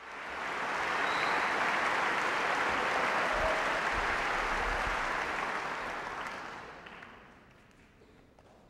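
Audience applauding steadily, the applause dying away about six to seven seconds in.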